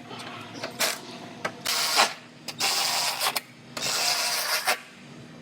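Hand-held power tool running in three short bursts of about a second each, with clicks in between, typical of fasteners being driven during reassembly of a car's front end.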